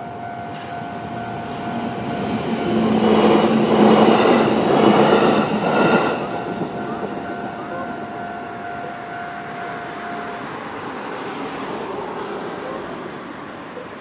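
Japanese level-crossing alarm ringing with its steady electronic bell tone while a JR E131-series electric train passes. The train's noise swells to its loudest a few seconds in and fades by about six seconds. The alarm stops about ten seconds in.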